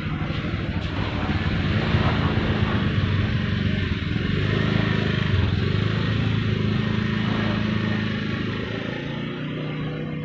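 Small step-through motor scooter engine pulling away, growing louder about two seconds in, running steadily, then fading near the end as it drives off.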